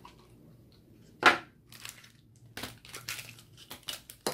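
A LOL Surprise plastic ball cracking open with one sharp snap about a second in, followed by the crinkling of the clear plastic wrapper around the accessory inside as it is handled and pulled open.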